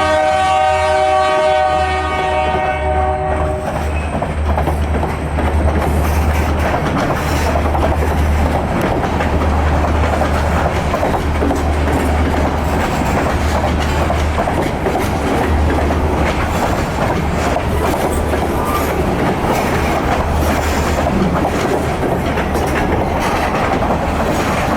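Canadian National train's locomotive horn sounding a held blast that cuts off about three and a half seconds in, then the train rolling past with a deep, uneven engine rumble and the wheels clattering over the rails.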